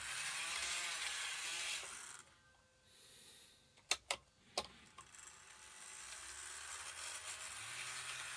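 Model Shinkansen power car's motor running, a steady whirring hiss with a low hum that rises in pitch as it speeds up. It stops about two seconds in, three sharp clicks follow around four seconds in, and the motor runs again from about five seconds.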